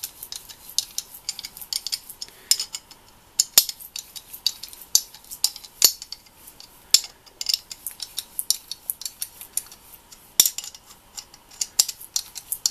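Small 8 mm socket tool working the screws of a motorcycle clutch pressure plate: irregular metallic clicks and clinks, metal on metal, as the screws are tightened evenly to compress the clutch spring.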